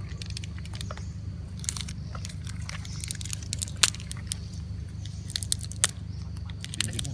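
A young monkey biting and chewing a piece of food, heard as scattered sharp crunching clicks that come in small clusters, over a steady low background hum.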